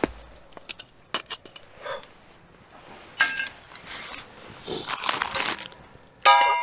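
Camp cookware being handled: light metal clicks and taps, a few short scraping, rustling sounds, then near the end a metal frying pan set down onto a small metal camp stove with a loud, ringing clank.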